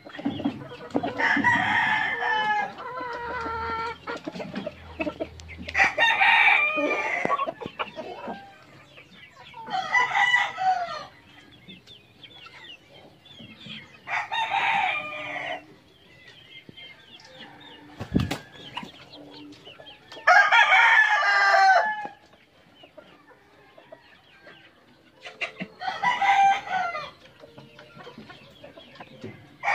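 Gamefowl roosters crowing repeatedly, about six crows a few seconds apart, with softer chicken calls between them. A single sharp knock comes about midway.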